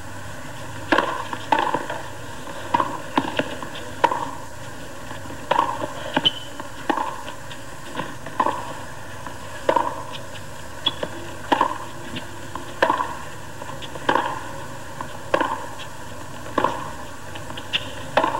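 Tennis ball struck by rackets and bouncing on a hard court during a long baseline rally: a string of sharp pops about every half second to second, with a quiet crowd hiss underneath.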